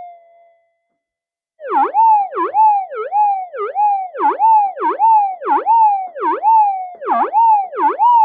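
Minelab GPX 4500 metal detector's audio tone fades out, then about one and a half seconds in comes back loud as a warbling tone. Its pitch dips sharply and springs back about twice a second: a strong, repeated target response as the detector passes over the wire and solder-joint area of a GPZ-7000 coil.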